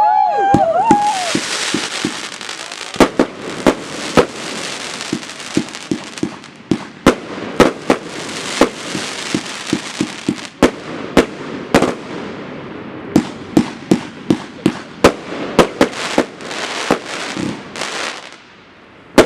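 30 mm compound firework cakes firing: a rapid, irregular string of sharp bangs, often a couple a second, over a continuous crackling hiss. The barrage thins out and dies away near the end, followed by one last bang.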